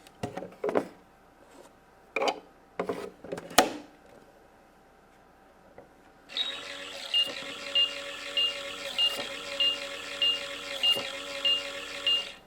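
Minnie Mouse BowTique toy microwave: plastic clicks and knocks as the door and buttons are worked, then about halfway through its electronic cooking sound starts, a steady hum with a short high beep repeating about every half second.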